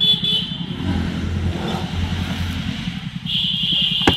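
A small engine running steadily with a fast, even pulse. A high steady tone joins it at the start and again near the end, and a sharp knock comes just before the end.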